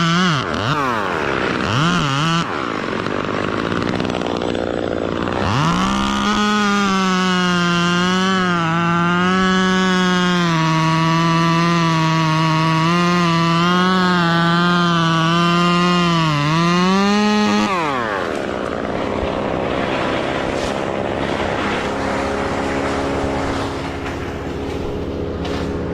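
Chainsaw engine running at high revs, its pitch sagging and recovering as the chain works through wood. The pitch drops sharply twice in the first couple of seconds. It revs back up about six seconds in and holds high for about ten seconds, then falls away to a lower running sound.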